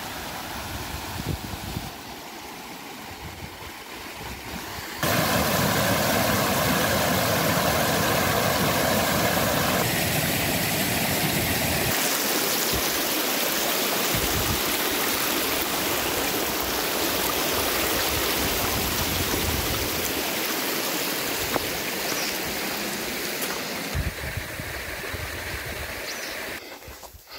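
Shallow mountain stream rushing over stones in a steady wash of water noise, which grows much louder about five seconds in.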